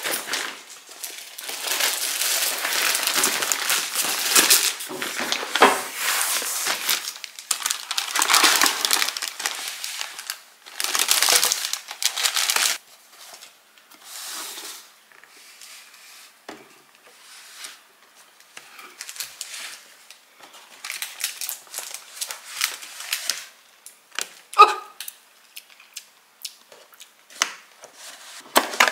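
Clear plastic wrap crinkling and rustling as a boxed cake is unwrapped, loud in long stretches for about the first dozen seconds. After that comes quieter handling of the cardboard cake box, with scattered light taps and one brief, sharp pitched sound about 25 seconds in.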